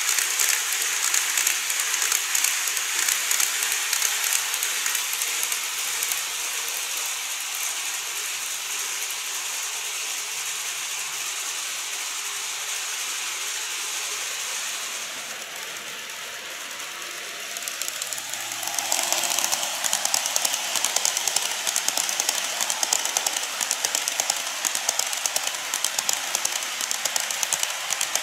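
Model train of 14-series blue coaches rolling along the track: a fast, dense clatter of wheels over the rail joints with a high hiss. It dies down about halfway through and grows louder again as the coaches pass close by.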